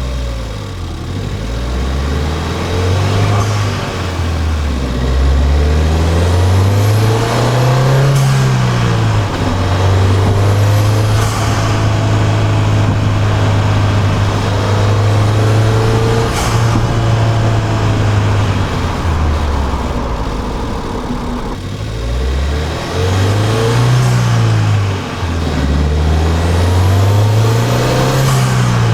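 Intake sound of a Ford Fiesta ST's turbocharged 1.6-litre EcoBoost four-cylinder, recorded beside the intake while driving with the stock OEM air filter. The engine note climbs and drops repeatedly as it revs and changes gear, with a high whistle rising with the revs twice.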